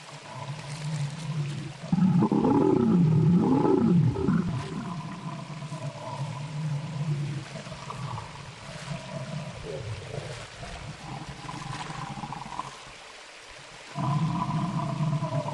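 Stegosaurus calls made for a TV documentary: low, pitched animal calls. The loudest, from about two to four seconds in, bend up and down in pitch. Quieter calls follow, and another loud call begins a second or so before the end, over a steady background hiss.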